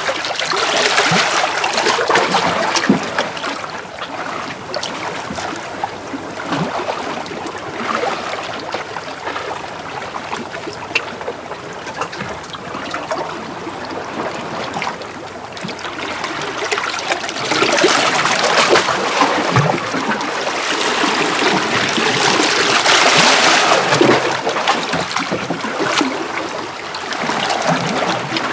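Small sea waves washing in and out over shore rocks, with water trickling and splashing among the stones. The wash is loud at first, softer for a long stretch, then swells again in the second half.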